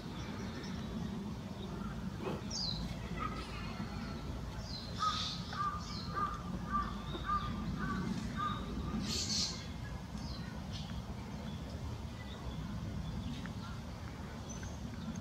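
Outdoor ambience of birds calling over a steady low rumble: a run of about eight short, evenly spaced calls from about five to eight seconds in, with a few high chirps scattered around it.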